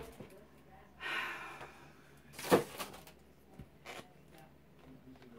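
A small plastic shampoo bottle's cap being worked open by hand: one sharp click about two and a half seconds in and a fainter one near four seconds, after a breathy rush of air about a second in.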